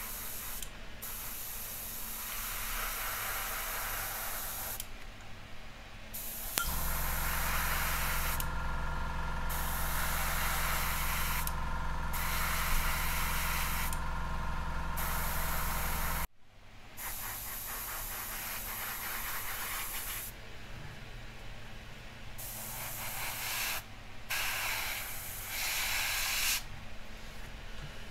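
Airbrush spraying black paint in hissing bursts with short breaks between them. From about six seconds in, a steady low hum runs under the hiss and cuts off suddenly about halfway through.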